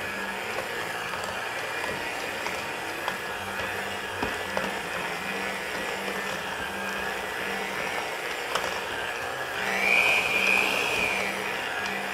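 Cuisinart electric hand mixer running at low speed, its beaters churning a thick ground-pork meatball mixture in a stainless steel bowl: a steady motor whine. Near the end it briefly gets louder and higher in pitch, then settles back.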